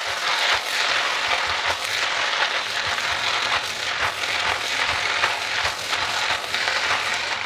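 Javanese fried noodles (mie goreng Jawa) with vegetables sizzling in a hot non-stick wok as they are tossed with two utensils. A steady sizzle runs under frequent short scrapes and clacks of the utensils against the pan.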